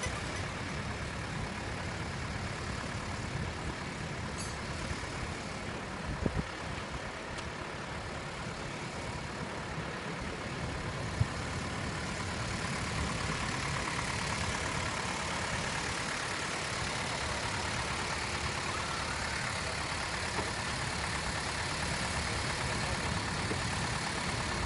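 Small narrow-gauge diesel locomotive's engine idling steadily while the loco sits on a hand-pushed turntable, with a few short sharp knocks, the loudest about eleven seconds in.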